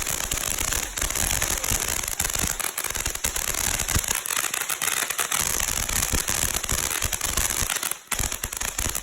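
A small consumer firework going off with a steady hiss and dense crackling, dipping briefly near the end.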